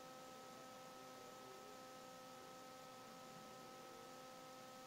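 Near silence: a faint steady hum and hiss in the recording.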